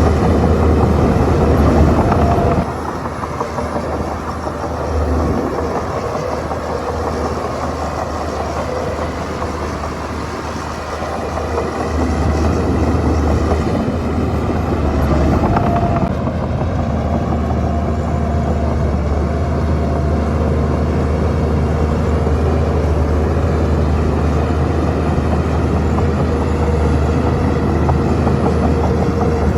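Heavy diesel engine of a Shantui crawler bulldozer running steadily under load. It drops in level a few seconds in and picks up again about halfway through.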